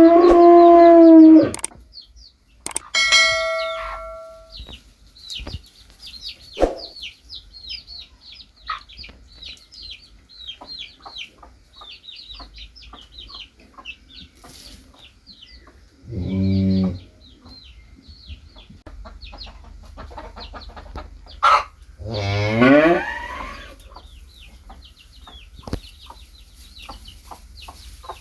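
Chicks peeping continually in short, high, falling cheeps. Over them come a few much louder farm-animal calls: one at the start, a low moo about sixteen seconds in, and a call that rises in pitch about twenty-two seconds in.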